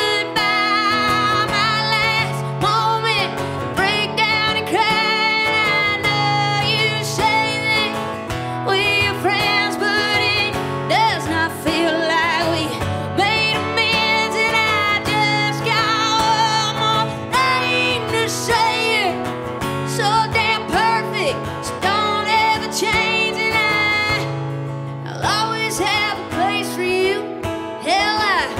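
Live country-rock song played by a band, with strummed acoustic guitar and a woman singing the melody.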